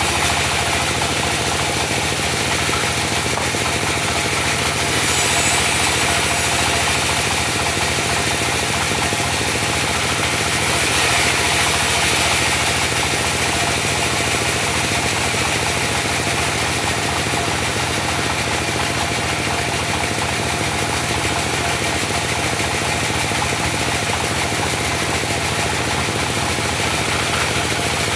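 Diesel engine running steadily under load, driving a mobile band sawmill, with a fast knocking beat to its running.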